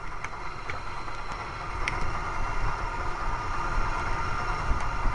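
Steady low background rumble with a few faint, light clicks in the first two seconds as zip-tied chainsaw parts are handled.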